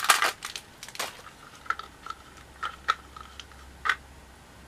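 Light clicks and taps of a small plastic toy cat carrier and figure being handled, with a short rustle at the start followed by about half a dozen separate clicks.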